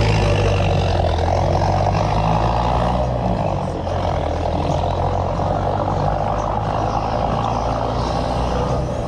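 A vehicle engine running steadily under a heavy rush of wind noise. The engine's low hum is strongest in the first three seconds and then eases a little.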